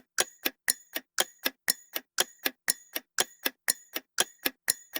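Ticking-clock countdown sound effect: steady sharp ticks, about four a second, timing the guessing period.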